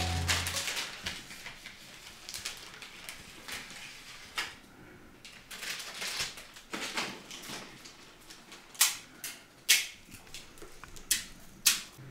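Small wood cooking fire crackling, with irregular sharp snaps. The loudest few snaps come in the last few seconds.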